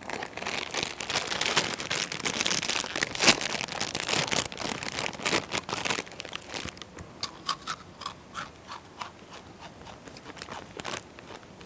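A foil snack bag of Takis rolled tortilla chips crinkled and rustled loudly and continuously for about six seconds, then a run of separate sharp crunches and crinkles, about two a second, that stops near the end.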